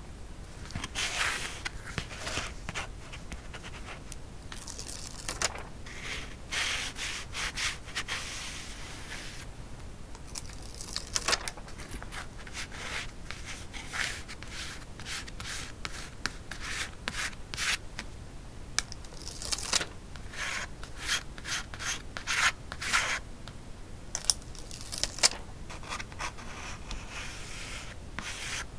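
A stylus rubbed over paper in runs of short, scratchy strokes with brief pauses between them, burnishing a rose design onto a journal page.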